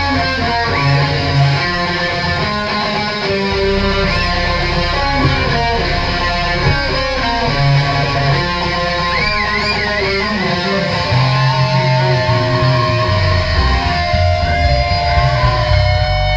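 Crust punk band playing live, loud: distorted electric guitar and bass over drums, with bent, wavering guitar notes. Near the end it thins to long held guitar notes.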